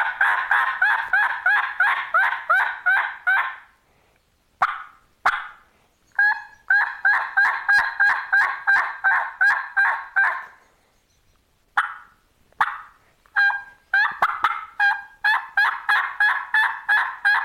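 W-cut latex diaphragm turkey mouth call blown in long runs of hen yelps, about three to four a second, each a short clear front note that drops quickly into rasp, the sound of an older hen. A few single notes fall between the runs.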